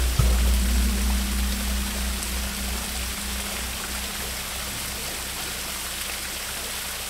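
Background music with a steady low beat that fades down over the first few seconds, laid over the constant splashing hiss of a small rock waterfall pouring into a pond.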